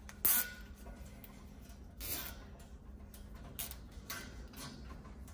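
Hands working a rubber air hose and its fittings: a sharp clack about a quarter second in, a short rustle around two seconds, then a few light clicks.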